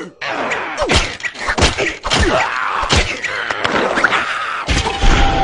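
Cartoon sound effects of a frantic scuffle: a quick string of thumps and whacks mixed with groaning, squealing character voices, several of them sliding down in pitch.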